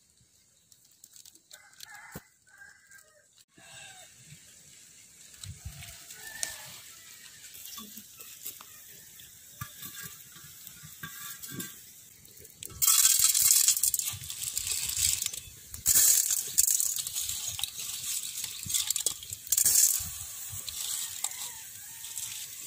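Chickens clucking and crowing now and then, then from about halfway a wood and dry palm-leaf fire under a wok crackling loudly with many quick snaps.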